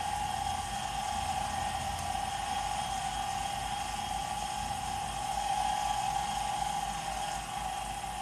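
Smithy 1220 LTD combo mill-lathe's milling spindle running with a steady whine as a 3/16-inch end mill is fed along a cut in a metal plate.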